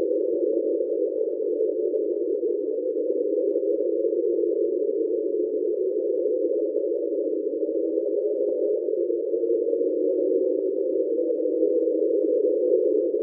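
Underwater hydrophone recording of the 'Train' sound: a steady, unbroken mid-pitched drone made by an iceberg scraping along the seafloor.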